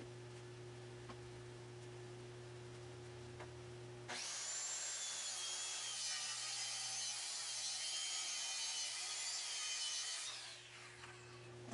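DeWalt circular saw starting about four seconds in and cutting through a sheet of plywood for about six seconds, then winding down after the cut. Before the saw starts, a steady low hum.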